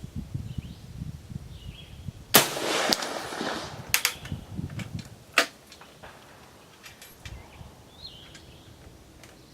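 Springfield Model 1866 Allin trapdoor rifle firing a single .50-70 smokeless round, a sharp shot about two seconds in with an echo that dies away over about a second and a half. A few sharp clicks follow. Faint bird chirps sound underneath.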